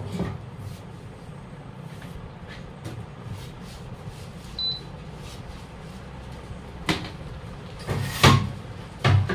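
Low steady hum with scattered light clicks and two sharp knocks in the last third, like hand tools being handled and set down.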